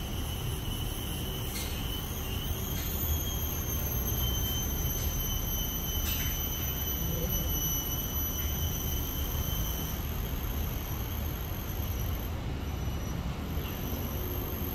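Steady low rumble of background noise with a thin, steady high-pitched whine over it.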